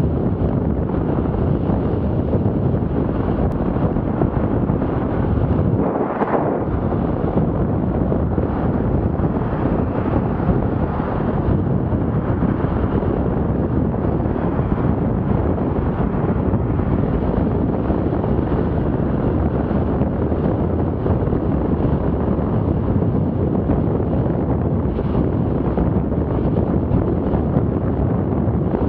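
Steady wind noise buffeting the microphone of a camera on a bicycle ridden at about 25 mph, mixed with road and traffic noise.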